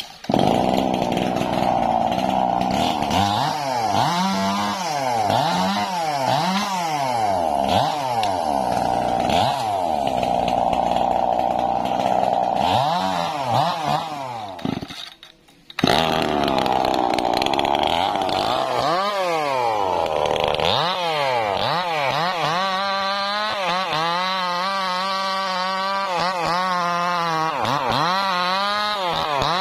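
Two-stroke chainsaw running hard and cutting into a sengon trunk, its engine speed rising and falling as the chain bites. The sound breaks off for under a second about halfway through, then the saw runs on with wavering revs.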